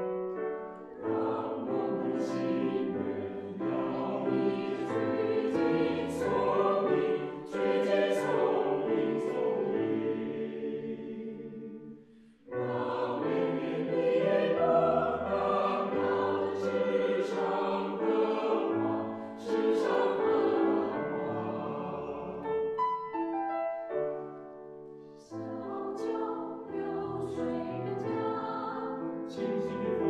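Mixed choir of men and women singing a Mandarin choral song in harmony, with piano accompaniment. The sound dips briefly between phrases, about twelve seconds in and again near twenty-five seconds.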